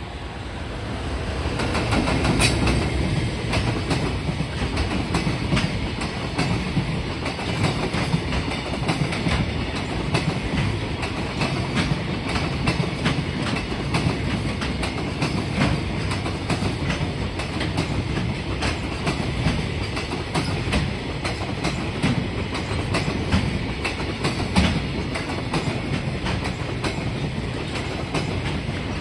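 Freight train passing, its wagons' wheels clicking over rail joints in a quick, uneven run of clacks over a steady rumble. The sound builds over the first two seconds, then holds loud.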